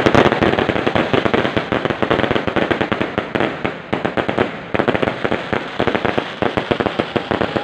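A fireworks barrage going off in a fast, unbroken string of bangs and crackles, many per second, led by one loud bang at the start.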